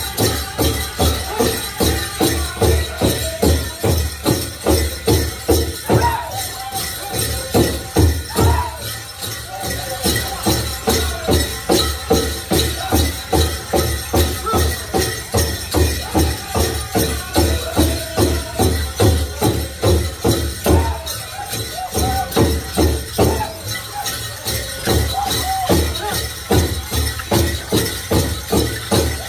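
Powwow drum group singing a duck-and-dive song: a steady drumbeat on the big drum under high-pitched group singing, easing off briefly twice, with the jingling of dancers' ankle bells.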